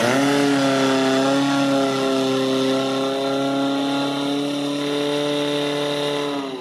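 Portable fire pump's engine held at high revs, running at a steady, even pitch.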